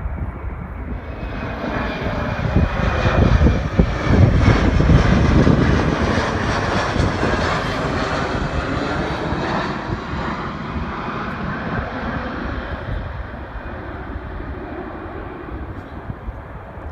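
Jet airliner passing close by, its engine noise swelling over a couple of seconds to a peak and then slowly fading away.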